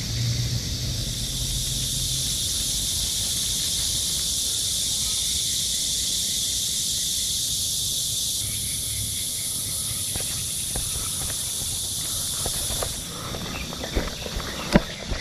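Steady high-pitched insect chorus droning, which drops away about thirteen seconds in, followed by a few sharp clicks.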